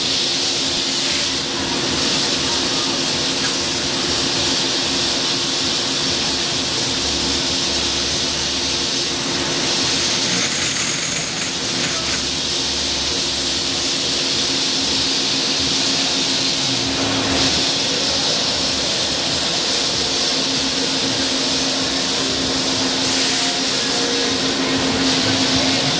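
Citizen L20 Type VII Swiss-type CNC lathe running, with a steady hiss of coolant spraying inside its enclosure over a steady machine hum.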